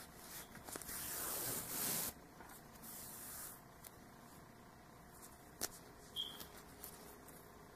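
Faint rustling of yarn and fingers on a crocheted hat as a crochet hook draws a yarn end through the stitches, in two short stretches in the first few seconds, then a single light click a little past halfway.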